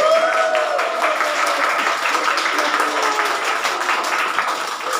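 Audience clapping, a dense steady patter of many hands, with a few voices rising over it near the start.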